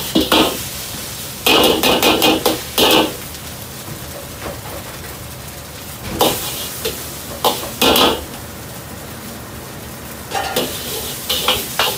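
Steel ladle clattering and scraping against a wok in four bursts as fried rice is stir-fried, the metal ringing on each strike. Between the bursts there is a steady hiss of rice sizzling in oil over the wok burner running at full flame.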